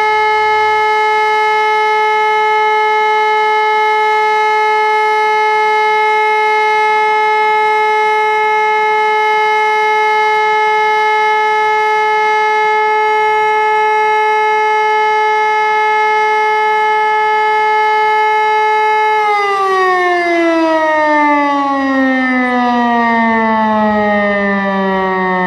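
Civil defence siren sounding the German all-clear (Entwarnung), a loud, steady single tone. About 19 seconds in it switches off and the pitch slides steadily down as it winds down.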